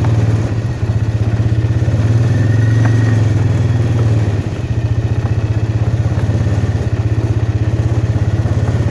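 A small vehicle's engine running steadily at low speed with a fast, even putter, easing off slightly about four seconds in.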